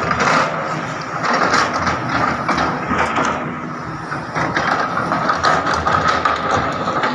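Heavy diesel construction machinery running: a steady engine rumble with a high whine over it and scattered clanks and knocks.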